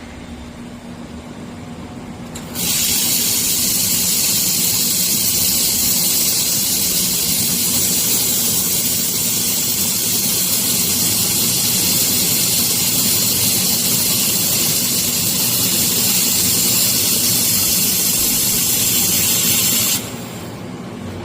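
Robotic laser welding cell running with a steady machine hum. About two and a half seconds in, a loud, even high hiss starts suddenly, holds through the welding pass, and cuts off sharply near the end.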